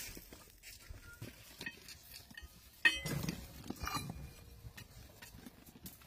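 Metal clinking and knocking at a hand-operated screw press, with one sharp metallic clank about halfway through and a short clatter of lighter knocks just after it.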